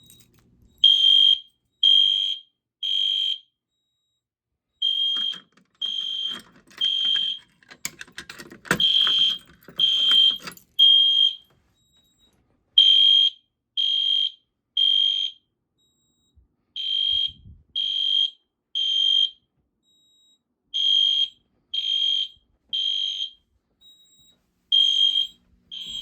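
Fire alarm system sounding in the temporal-three evacuation pattern. It gives a high electronic beep three times, then a pause, and the group repeats every four seconds. Some clattering is heard a few seconds in.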